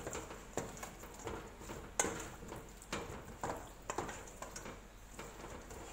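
Wooden spoon stirring sauce-coated chicken pieces in a stainless steel bowl, with irregular knocks and scrapes against the metal about every half second to second. The sharpest knock comes about two seconds in.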